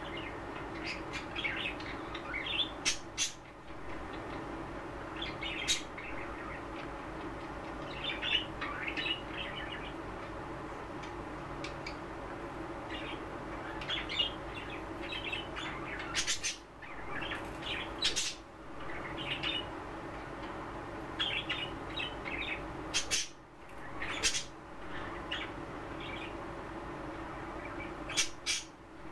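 Pet budgerigars chattering in short chirps and warbles, broken by a few brief, louder squawks, over a steady low background hum.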